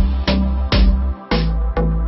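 Background music: an electronic track with a drum-machine beat and heavy bass.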